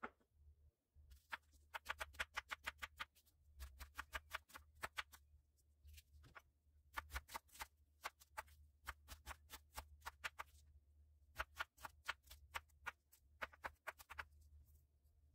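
Chef's knife chopping red onion on a wooden cutting board: quick runs of sharp knocks, about eight strokes a second, broken by short pauses.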